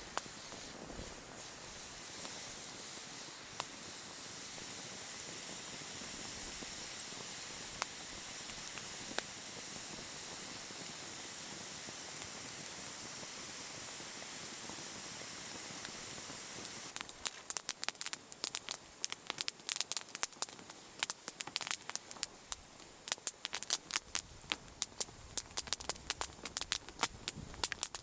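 Wood fire burning in a Picogrill fire pit: a steady hiss with occasional pops, then from about two-thirds of the way in, dense sharp crackling and popping of the burning wood.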